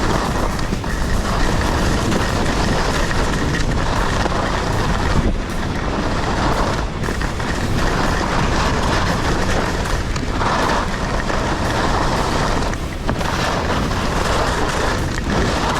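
Wind rushing over the microphone and ski edges scraping on packed snow during a fast downhill run on Blizzard Bonafide 97 skis. It is a loud, steady rush with brief dips every few seconds.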